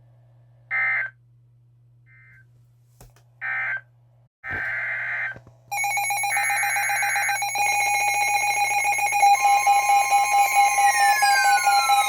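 Emergency Alert System data bursts: three short bursts of digital tones in the first five seconds, marking the end of one alert and the header of the next. About six seconds in, a loud steady electronic alert tone starts, and falling pitch sweeps are layered over it near the end.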